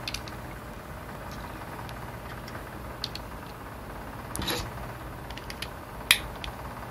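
Plastic LEGO bricks clicking and knocking as they are handled and pressed onto a small model: a scattering of short sharp clicks, the loudest near the end, over a steady low hum.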